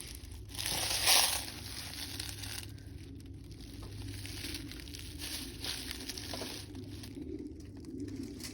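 Rustling and crinkling of dry leaves and forest debris, loudest in a burst about a second in, then fainter scattered rustles.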